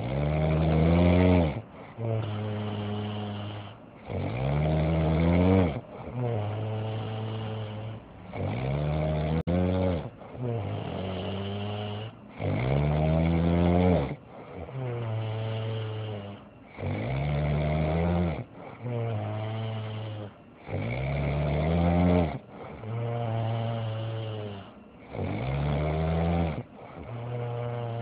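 A sleeping man snoring loudly and rhythmically. Each rough snore lasts about two seconds, with only brief pauses between them.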